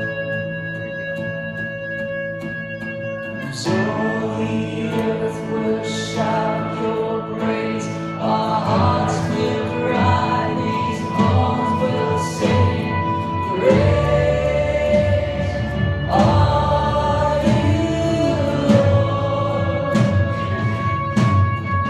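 Live worship band playing a slow song: acoustic guitar and held instrument chords, with singing coming in about three and a half seconds in and carrying on over the band.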